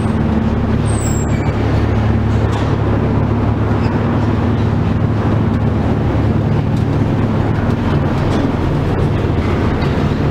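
Detachable gondola lift station machinery running as the cabin rolls through the station: a loud, steady mechanical hum and rumble with several low steady tones and a few light clicks, heard from inside the cabin.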